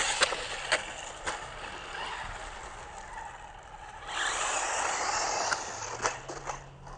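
Small 1:18-scale WLtoys 18429 RC buggy driving fast on asphalt, its tyres and drivetrain making a rushing noise. Sharp clattering knocks come near the start as it tumbles over, and more follow about six seconds in.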